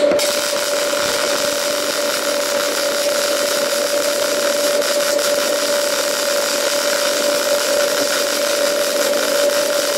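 Electric welding arc burning steadily: an even hiss with a steady hum in it, unbroken throughout.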